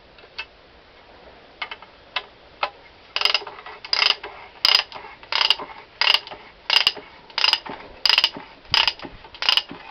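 Ratchet wrench turning the screw of a coil-spring compressor to compress a front strut's spring. A few lone clicks, then from about three seconds in a steady run of ratcheting strokes, about three every two seconds.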